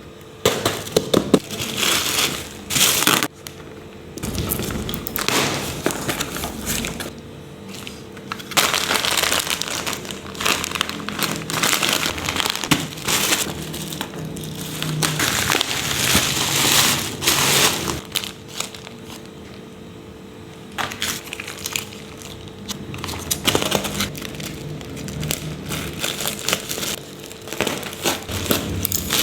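Plastic packaging crinkling and rustling in irregular bursts as parcels are unwrapped and opened.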